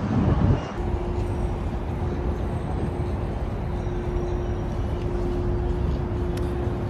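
Steady rumble of city traffic on an elevated highway, with a brief louder swell in the first second and a faint steady hum from about a second in.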